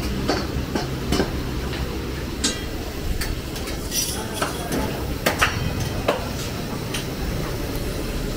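Metal spatula irregularly clanking and scraping against a karahi wok as the dish is stirred, over a steady hiss of frying.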